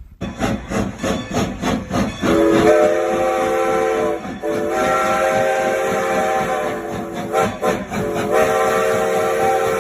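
Train sounds: rhythmic clatter like train wheels for about two seconds, then a multi-tone horn that sounds in long blasts with two short breaks, cutting off suddenly at the end.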